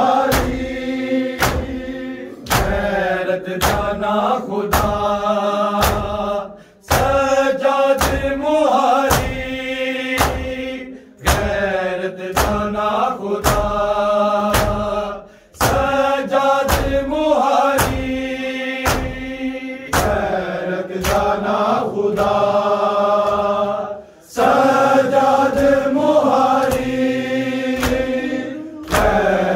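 A group of men chanting a noha in unison, keeping time with rhythmic matam chest-beating slaps, about three strikes every two seconds. The chant breaks off briefly a few times between lines.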